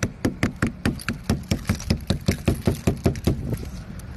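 Rubber mallet rapidly striking the ice coating a frozen-over car, about five blows a second, stopping near the end. The ice is being knocked loose so the car door can be opened.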